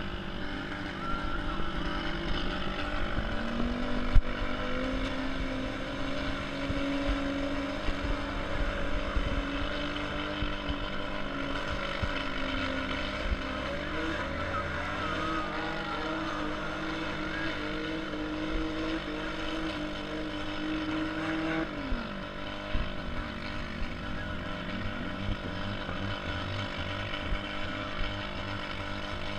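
Demolition derby car engines running, one engine's pitch climbing slowly under throttle and then dropping off about 21 seconds in, with scattered knocks and one sharp bang about four seconds in.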